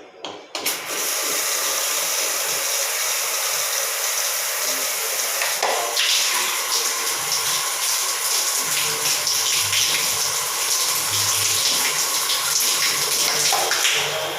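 Water rushing steadily from an open tap or pipe, starting abruptly about half a second in.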